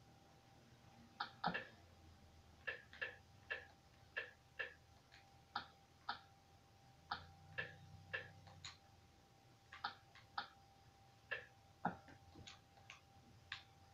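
An irregular series of light clicks or taps, one or two a second, over a faint steady hum.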